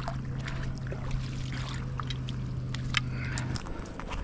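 A boat engine running steadily out on the water, a low hum that cuts off suddenly about three and a half seconds in, with scattered small clicks and ticks close by.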